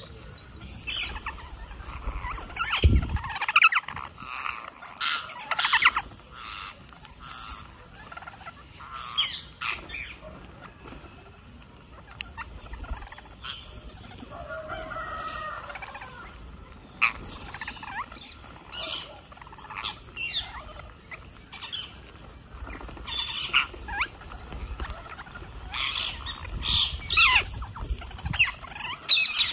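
Rose-ringed parakeets feeding in a flock, giving many short, harsh squawks and calls at irregular intervals, over a steady high-pitched tone.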